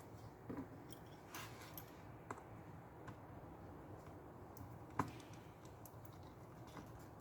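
Faint, scattered clicks and taps of small hand tools working on an iPad as its screws are taken out, with one sharper click about five seconds in.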